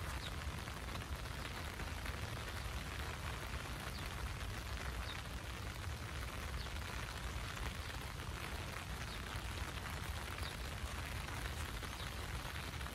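Steady rain falling on a park's grass and trees: an even hiss with a low rumble underneath.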